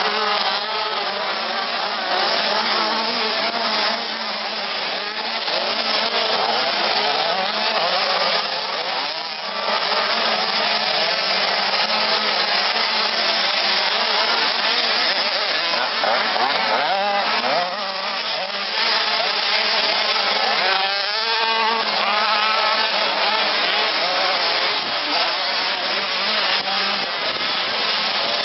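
Small-displacement two-stroke motocross bike engines, a KTM 85 among them, racing. The engines rev up and down continuously, several at once, with brief lulls as throttles are rolled off.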